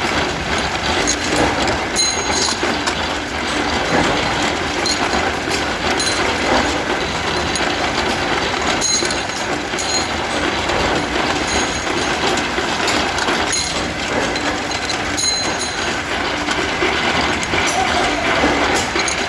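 Rebar straightening machine running, a steady clatter with scattered sharp metallic ticks.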